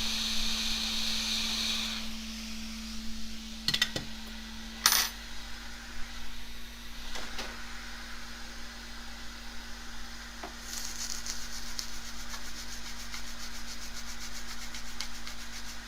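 Small, sharp metal clicks and taps of hand tools working on a laptop motherboard, over a steady low hum. A hiss of air stops about two seconds in, and a fast, even high ticking starts about two-thirds of the way through.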